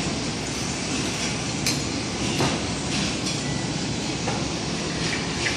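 Steady rumbling background noise of a factory workshop, with several faint clicks and knocks scattered through it.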